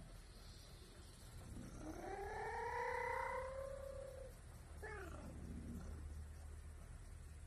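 Bobcat giving a voiced yawn: a drawn-out call that rises in pitch and then holds for about two and a half seconds, followed by a shorter falling note as the yawn closes.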